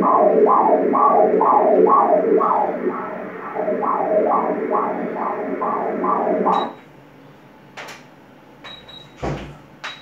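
Pulsed-wave Doppler ultrasound audio of fetal umbilical artery blood flow: rhythmic whooshing pulses about two and a half a second, the fetal heartbeat. They stop suddenly about two-thirds of the way in, followed by a few faint clicks and a thump.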